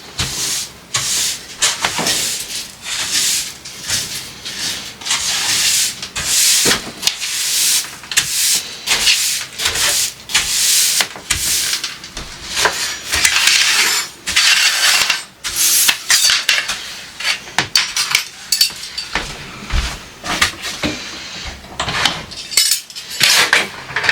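Kitchen cleanup: dishes, utensils and other items clattering as they are picked up and set down, mixed with stretches of rubbing and wiping noise.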